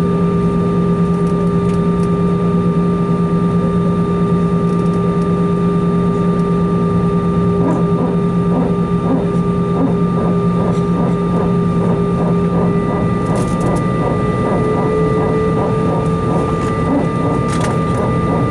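Steady hum and whine inside an Airbus A320 cabin on the ground. About halfway through, a rhythmic pulsing of two to three beats a second sets in, and a few seconds later the hum changes pitch as the aircraft's systems change state.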